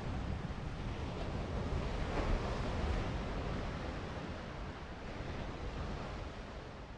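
Designed underwater ambience: a dense wash of water-like noise, strongest in the lows, slowly fading out.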